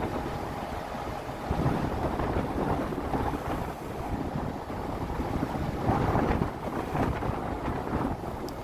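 Wind buffeting the microphone in uneven gusts that swell and ease, with a faint steady hum underneath.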